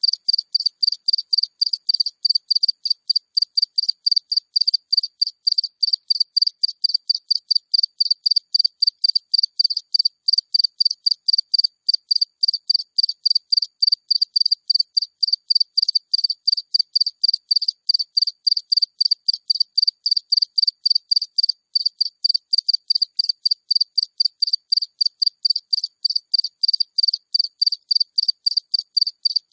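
A single house cricket (Acheta) chirping close up: short high-pitched chirps repeated in a steady, even rhythm without a break.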